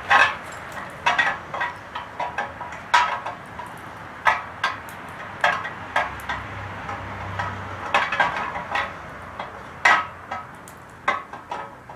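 Sharp metallic clinks and knocks, about a dozen at uneven intervals, as the camshaft and other parts are fitted into a Holden 308 V8 engine block.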